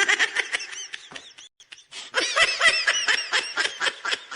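Laughter sound effect: a long run of quick, high-pitched laughs in rapid bursts, breaking off briefly about a second and a half in, then carrying on.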